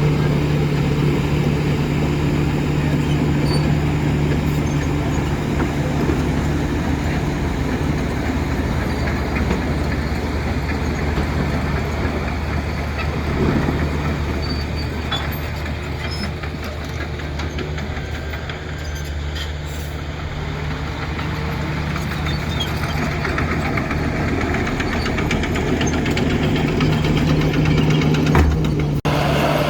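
Heavy diesel engine of earth-moving machinery running steadily with a constant low hum, easing off slightly midway and cutting off abruptly near the end.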